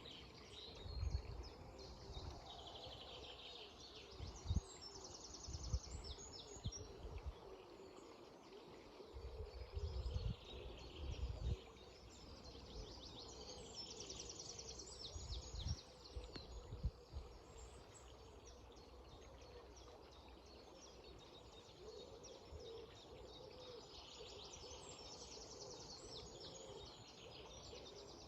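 Songbirds singing repeated high phrases over the steady rush of flowing river water. Now and then low rumbles buffet the microphone and are briefly the loudest sound.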